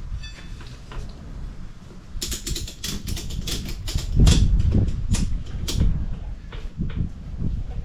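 Ratchet strap being cranked tight around a tubeless motorcycle tyre, a quick irregular run of sharp clicks, to squash the tyre so its bead will seat when inflated. A steady low hum runs underneath.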